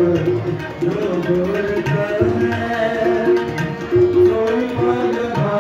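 Sikh devotional kirtan music: tabla drumming in a steady rhythm under a held melody line.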